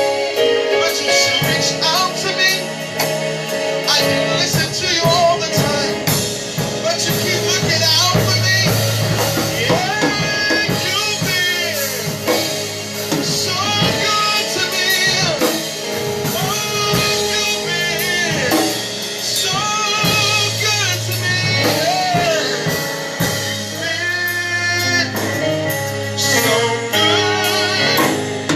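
Gospel praise-and-worship music: singers holding and bending long sung lines over a band with drum kit.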